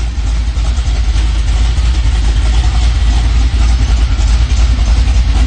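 A 1985 Chevy van's engine idling steadily, a loud low rumble.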